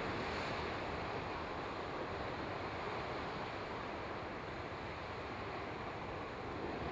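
Steady wind and ocean surf: an even rushing noise with no distinct events.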